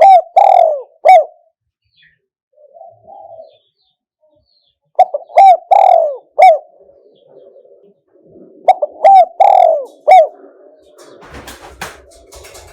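Spotted dove cooing: three phrases about four to five seconds apart, each a few short coos with one longer falling note, and a softer coo between the first two. A brief crackle comes near the end.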